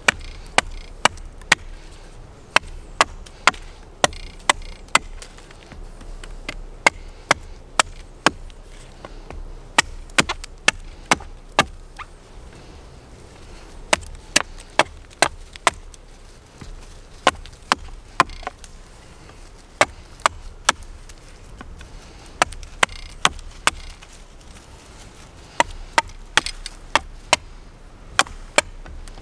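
Small axe chopping a point onto the end of a green sapling stick braced against a log. Sharp wooden chops come about two a second, in runs of several strokes with short pauses between.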